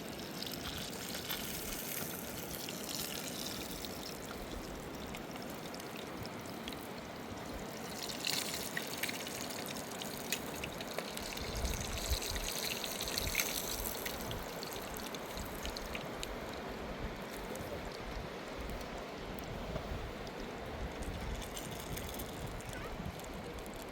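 Running river water, a steady rush with louder splashing stretches about eight and about twelve seconds in.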